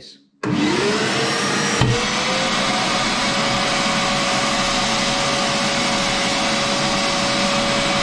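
DeWalt 38-litre wet and dry vacuum switched on about half a second in. Its motor whine rises in pitch as it spins up over the next two seconds, then it runs steadily at full suction. There is a sharp knock about two seconds in and a short low thump near the end.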